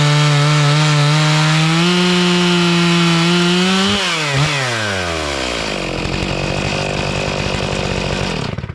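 Stihl MS 661 two-stroke chainsaw on a 56-inch-bar Alaskan chainsaw mill, running at high revs. About four seconds in the revs fall away to a steady idle, and the engine shuts off suddenly near the end.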